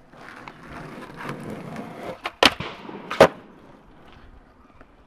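Skateboard wheels rolling on pavement, then two sharp, loud clacks of the board about a second apart, like the pop and landing of a trick, before the roll fades away.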